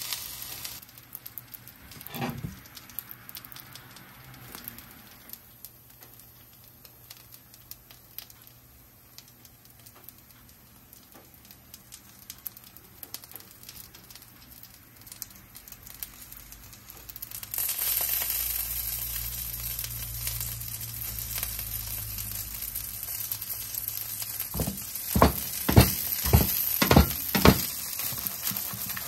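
Frozen winged gyoza sizzling in oil in a nonstick frying pan on an IH cooktop, a faint crackle that grows into a louder, steady sizzle about two-thirds of the way through. Near the end the pan is moved on the cooktop, giving a quick run of knocks and scrapes.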